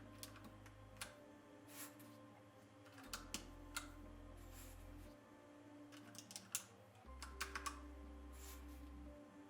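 Faint, scattered plastic clicks of keycaps being pressed onto a mechanical keyboard's switches, the keys clacking as they bottom out, with a few clicks in quick succession twice. Soft background music with a low bass line runs underneath.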